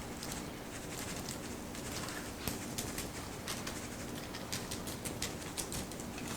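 Accent seasoning shaken from its shaker onto chicken pieces: irregular light ticks and rattles, more of them in the second half, over a steady low hum.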